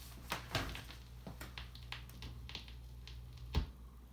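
Stylus of a 1950 Stromberg-Carlson PR-1 transcription turntable tracking the silent groove of a vinyl LP after the music ends: scattered crackles and pops of surface noise over a low steady hum. Near the end there is one louder click with a thump as the tonearm is lifted off the record.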